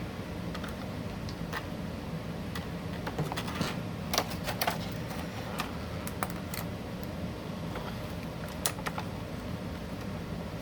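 Irregular sharp clicks and ticks of plastic toy packaging being handled as an action figure is worked out of its tray, thickest about the middle, over a steady low background hum.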